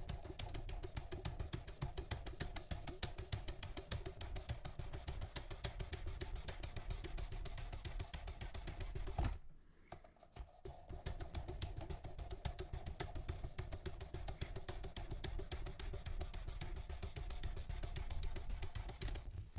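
Rapid back-and-forth scraping of a knife edge against a 600-grit sharpening stone on a Worksharp Precision Adjust guided system, a quick rhythm of strokes with a short pause about nine seconds in. The edge is still rough and toothy at this grit.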